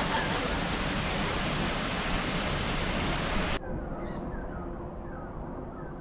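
Steady rush of flowing water, with a few faint bird chirps through it, which stops abruptly about three and a half seconds in. After that, small birds chirp faintly over a low background, short falling chirps about twice a second.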